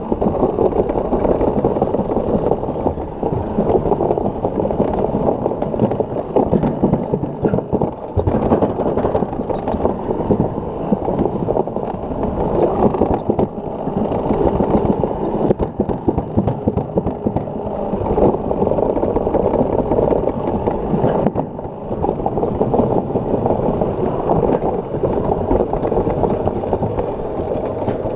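Toboggan cart running fast down a stainless steel track: a loud, continuous rumble and rattle of its wheels on the metal trough.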